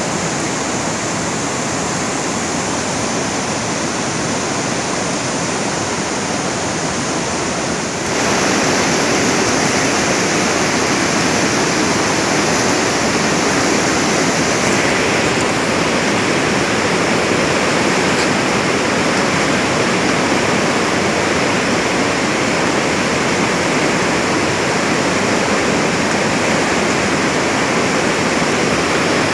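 Steady rush of flowing water, which grows a little louder about eight seconds in and then holds steady.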